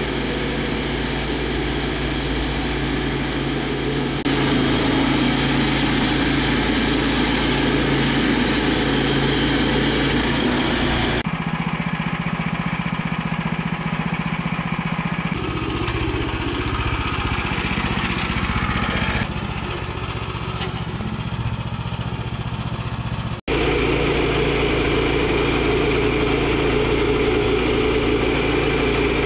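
Sawmill engine running steadily while cutting lumber, heard in several spliced clips. For about twelve seconds in the middle the sound is duller, with less hiss.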